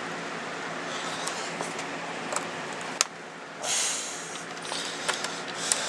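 Small screwdriver driving screws into a laptop's plastic case: scattered light clicks and a short scrape a little past halfway, over a steady background hum.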